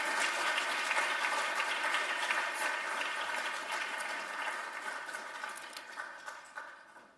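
Audience applauding, a dense patter of many hands clapping that holds steady and then fades away over the last few seconds.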